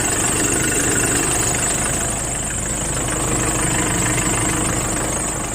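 Nissan D40 pickup's engine idling steadily, with a steady high-pitched hiss over it; the owner presents the noise as a bad sound, a fault.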